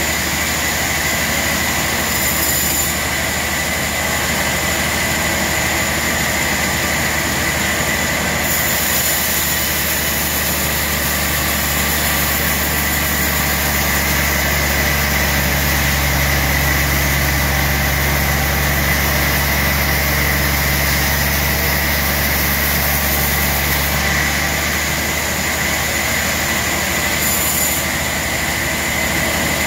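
Large sawmill band saw running and cutting through a big log, a steady loud mechanical noise with a constant high whine over a low hum. The noise grows fuller about eight seconds in and lightens again about twenty-four seconds in, as the blade works through the wood.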